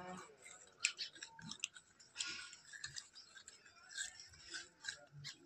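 Gray langurs eating: faint, irregular clicks and scrapes of chewing and of food being picked out of a steel bowl.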